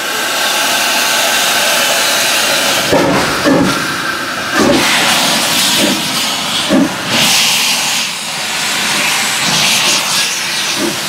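Steam locomotive G 4/5 108 blowing steam from its open cylinder drain cocks in a loud, steady hiss, with a few slow, uneven exhaust chuffs as it starts away with its train.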